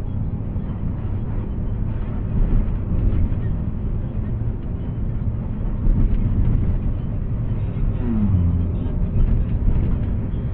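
Engine and road noise of an intercity bus on the move, heard from inside the driver's cab: a steady low rumble, with a brief falling tone about eight seconds in.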